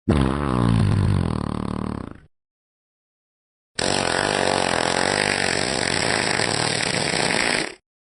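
Two fart sound effects. A pitched one of about two seconds trails off, and after a pause of about a second and a half a longer, noisier one lasts about four seconds and stops suddenly.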